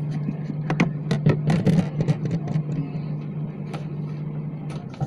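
Steady low hum, with a quick run of clicks and knocks about a second in and a few scattered ones later, typical of hands and tools working on a refrigerator.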